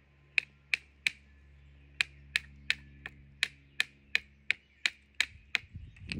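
A hand-held rock striking snare wire laid on another rock: sharp stone knocks about three a second in short runs, some sixteen in all, beating the doubled wire to break it. The tough wire holds out against the blows.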